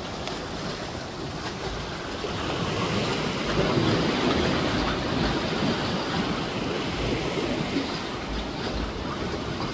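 Sea washing against shoreline rocks as a steady rush, swelling a little in the middle, with wind buffeting the microphone in low thumps.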